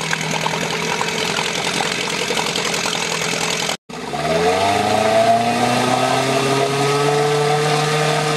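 Small Johnson two-stroke outboard motor running in a test barrel of water. It runs steadily, breaks off briefly just under four seconds in, then speeds up over about a second and holds a higher, steady speed.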